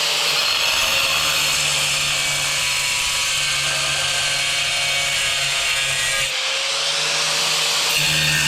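Angle grinder cutting into a hard tile: a steady, loud grinding over the motor's hum, easing briefly about six seconds in before the cut carries on.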